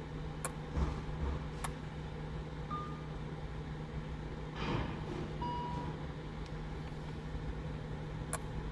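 Steady low hum with a few sharp clicks and two short electronic beeps from the Lamborghini Huracán Performante's controls, one beep about three seconds in and a slightly longer one just past the middle, during an attempt to reset the tyre-pressure monitoring system.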